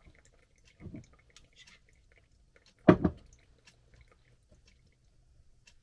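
Soft, sticky scraping and small clicks of peanut butter being spread on bread on a wooden cutting board. There is a soft knock about a second in and a short, louder knock about three seconds in.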